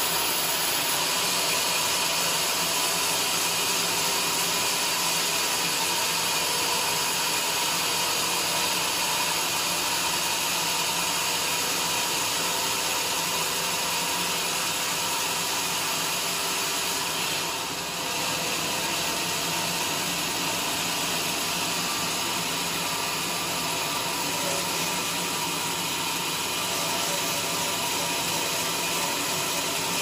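Large vertical band sawmill running steadily, its blade sawing through jackfruit wood with a constant hissing whine. The sound dips briefly a little past halfway.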